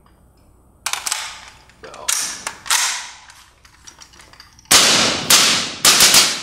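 Colt AR-15 (M16A1-pattern) rifle in 5.56mm firing through a Gemtech Halo suppressor: a string of about eight suppressed shots at uneven spacing, each with a short echoing tail, the last three coming in quick succession and loudest near the end.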